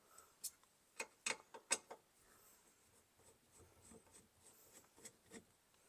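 Light clicks and taps of small metal and plastic parts being handled in a steering column as the turn signal switch is worked loose: a quick run of about five clicks in the first two seconds, then two more near the end.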